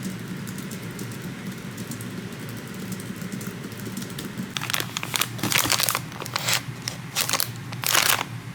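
A steady low hum, then from about halfway a run of loud, irregular crinkling rustles, like plastic or packaging being handled close by.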